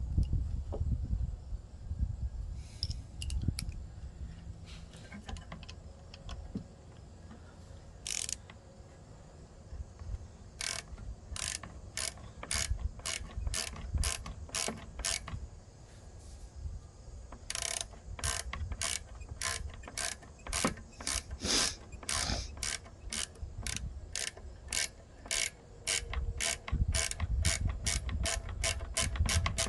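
Hand ratchet wrench clicking as a small bolt is worked in repeated short strokes, in steady runs of about two clicks a second through the second half.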